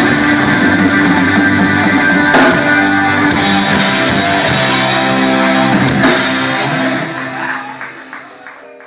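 Background rock music with guitar and drums, fading out over the last two seconds.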